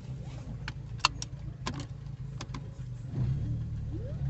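Car engine idling, heard from inside the cabin, with several sharp clicks in the first couple of seconds. About three seconds in, the engine note rises and grows louder as the car pulls away.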